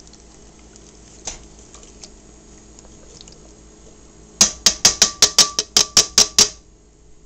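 Metal can of Bush's baked beans being knocked rapidly against the pot to shake out the last beans: a quick run of about a dozen sharp metallic clinks, roughly six a second with a slight ring, starting about four seconds in.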